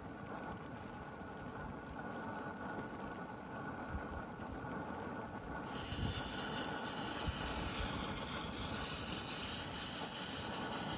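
1935 Primus 71 petrol stove flaring with big yellow flames as it is lit, a steady rumbling burn; a little over halfway through a loud steady hiss sets in. The flaring is the sign the burner is not yet hot enough to vaporise the petrol properly.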